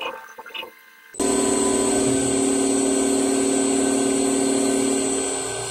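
CNC milling machine engraving aluminium with a fine bit: the spindle's steady high whine over a lower hum and cutting noise, cutting in abruptly about a second in and running on steadily, easing slightly near the end.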